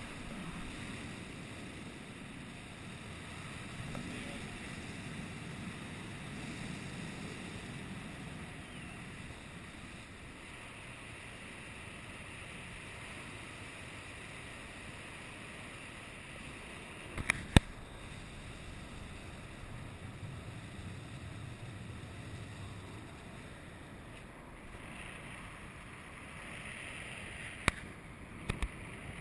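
Steady wind rushing over the camera microphone from the airflow of a tandem paraglider in flight. A pair of sharp clicks comes about 17 seconds in, and two more near the end.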